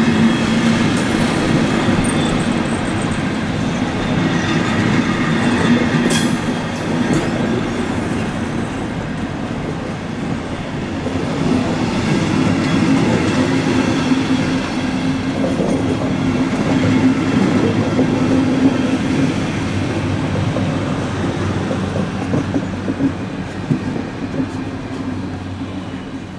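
Passenger coaches of a departing train rolling past close by: a steady wheel rumble with clacking over rail joints and a sharp clank about six seconds in. It fades near the end as the last coach goes by.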